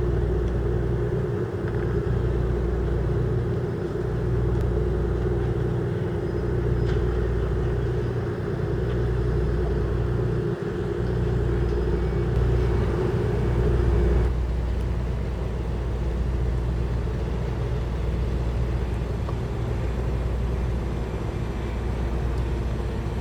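Fishing boat's diesel engine running steadily with a low rumble; a higher hum within it cuts off about fourteen seconds in.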